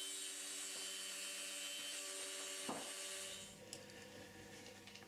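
Proxxon MF70 micro milling machine's spindle running steadily while an end mill cuts a slot in a wooden workpiece, a steady hum with a high hiss. About three and a half seconds in it gives way to a few faint clicks as hands work the knurled screw of the steel machine vice.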